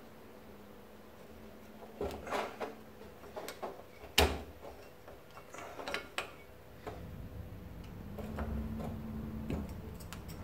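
Scattered metal clicks and light scrapes from a Hitachi air suspension compressor's piston and barrel being worked together by hand, as the piston and its top ring are eased into the new cylinder barrel. One sharp click about four seconds in is the loudest; a low hum comes in over the last few seconds.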